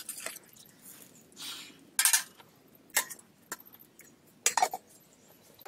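Metal spatula clinking against a black iron cooking pan while stirring a curry: a handful of separate sharp clinks, the loudest about two seconds in.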